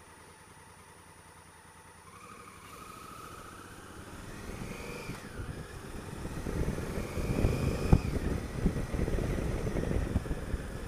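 Honda Africa Twin CRF1000L's parallel-twin engine pulling away from a standstill and accelerating through the gears, its pitch rising and dipping at each gear change. Wind buffeting on the helmet-mounted microphone builds with speed and is the loudest sound in the second half.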